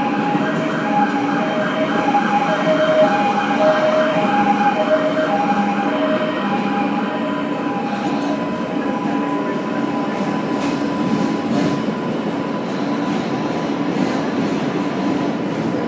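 R143 subway car running at speed, heard from inside: steady rolling wheel-and-rail noise with an electric whine that steps back and forth between two pitches for the first half, then settles into one steady high tone. A run of sharp clacks comes about two-thirds of the way through.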